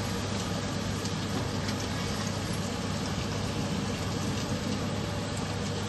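Puri deep-frying in hot oil in an iron kadhai, a steady sizzle as it is pressed in the oil with a slotted spatula, with a steady low hum underneath.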